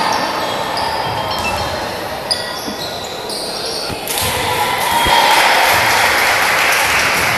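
Basketball game in an indoor arena: a ball bouncing on the court in a few distinct thuds, short high squeaks of sneakers early on, and crowd noise that swells about four seconds in.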